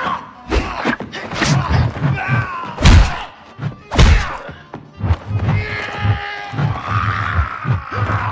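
Film fight sound effects: a quick series of punch and kick impacts, the two heaviest about three and four seconds in, with the fighters' grunts between blows, over a music score.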